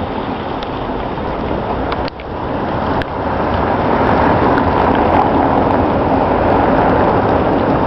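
Steady rushing splash of water from a town-square fountain, growing louder about three seconds in and then holding steady.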